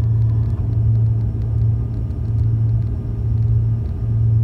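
Cabin drone of a Cessna 310's twin piston engines and propellers in flight, a steady low hum that swells and fades about once a second.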